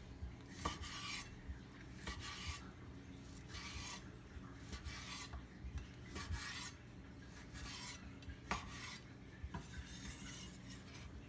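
A kitchen knife sawing through a cooked pork shoulder steak on a wooden cutting board: repeated rasping strokes, with a few sharp taps of the blade against the board.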